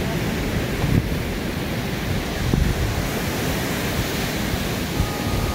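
Wind buffeting the microphone over the steady wash of surf on the beach.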